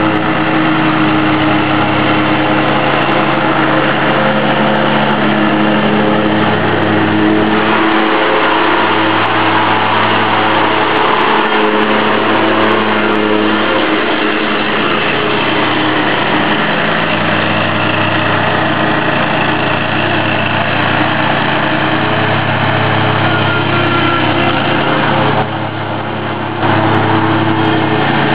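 Hustler Super Z zero-turn riding mower running steadily while mowing, its engine drone mixed with the whir of the cutting deck. It is louder in the middle as it passes close, and there is a brief drop in level near the end.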